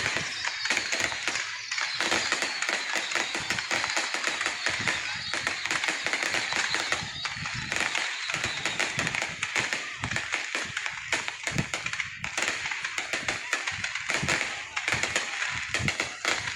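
Fireworks going off: a dense, continuous crackle of many small bursts, with scattered deeper thuds and a few faint whistles near the start.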